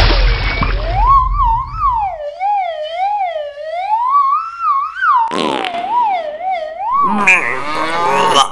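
A siren-like wailing tone that wavers up and down unevenly, a few swings a second, opening on a burst of noise with a low rumble. A second noisy burst comes about two-thirds of the way in, and a denser pitched sound follows near the end.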